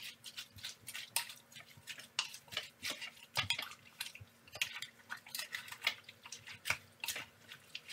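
Wooden spoon stirring chunky chicken and vegetables in a crock pot, knocking and scraping irregularly against the pot's insert several times a second.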